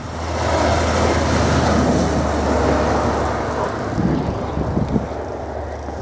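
A motor vehicle passing close by on a snow-covered road. Its noise swells over the first couple of seconds and then slowly fades, over a steady low rumble.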